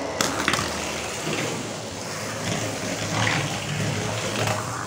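Motorized Hot Wheels '70 Dodge Challenger, driven by a mini DC motor, running along a cardboard track: a steady whirring with a few light knocks from the car on the track.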